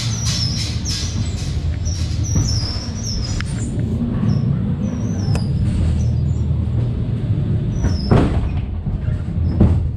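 Ghost train car running along its track with a steady low rumble, high short squeaks, and two sudden loud blasts near the end.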